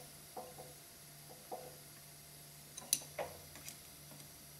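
A few light metallic clicks and taps as a steel top hat bushing is fitted into a hollow chisel morticer's spindle and worked with an Allen key. The sharpest click comes about three seconds in. A faint steady hum runs underneath.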